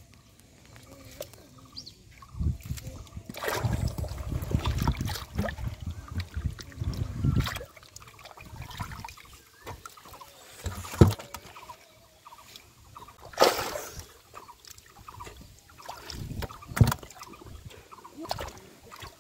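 Hands sloshing and splashing through shallow muddy water in a mud fish trap while grabbing catfish. There is a long stretch of heavy sloshing in the first half, then a few sharp slaps and splashes.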